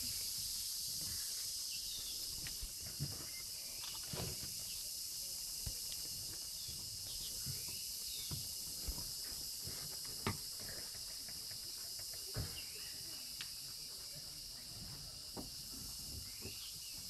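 Steady high-pitched chorus of forest insects, with a few short falling bird chirps and scattered light clicks and knocks.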